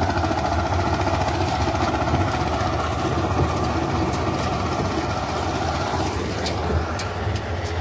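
Mini tractor engine idling steadily, then revving up about six seconds in as the tractor pulls away, with a few sharp metallic clicks near the end.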